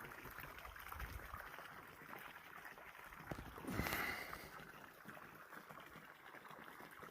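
Faint water sloshing and lapping in a hot spring pool, with one louder swish of moving water about four seconds in.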